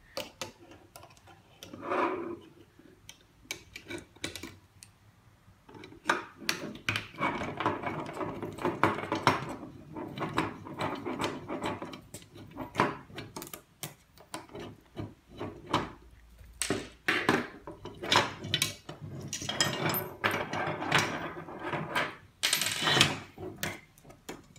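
A screwdriver and needle-nose pliers working a bolt and nut loose on the metal Z-axis bracket of a 3D printer's build platform. Irregular clicks, scrapes and metal-on-metal rubbing, sparse at first and busier from about six seconds in.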